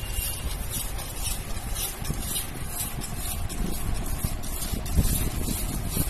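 Hand whisk stirring cake batter in a bowl: a steady run of swishing strokes, about two a second, over a low rumble. The flour-and-milk batter is being mixed slowly to work out the lumps.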